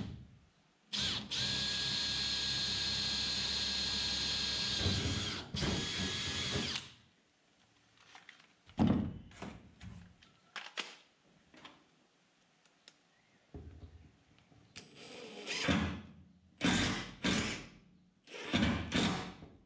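Makita 18V cordless drill running steadily with a whine for about four seconds, then briefly again, drilling a pilot hole through the plywood floor panel into the beam beneath. Scattered knocks follow as tools are put down and picked up, then a Makita cordless impact driver drives a screw in three short bursts near the end.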